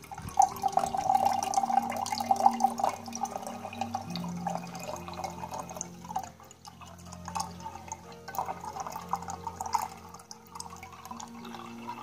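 Tea pouring from the spout of a small 180 ml Yixing clay teapot into a glass pitcher. The pour is strongest for the first three seconds or so, then carries on as a thinner, uneven trickle.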